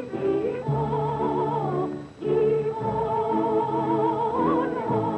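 Music: a singer with a strong vibrato over an instrumental accompaniment, with a short break between phrases about two seconds in.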